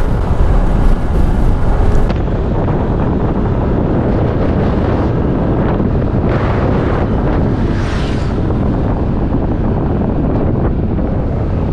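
Steady wind noise buffeting the microphone of a rider on a moving Yamaha NMAX scooter. The scooter's running and road noise are mixed in under the wind.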